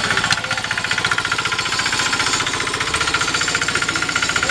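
Motorcycle engine idling with a rapid, even beat of exhaust pulses.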